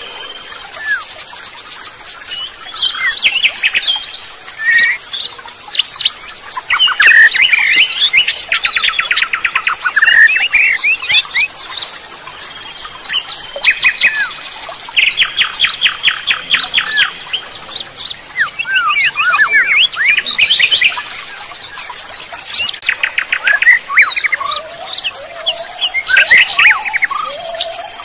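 A dense chorus of songbirds singing and chirping together. Fast repeated trills and short whistled phrases overlap without a break.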